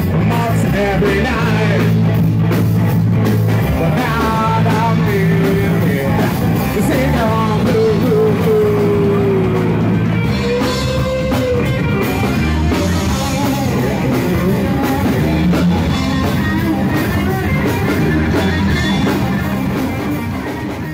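Rock music with a singing voice over a full band. It comes in abruptly and fades out near the end.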